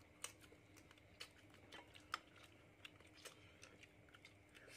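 Faint, scattered light clicks of metal spoons against ceramic plates and bowls as people eat, a dozen or so irregular taps.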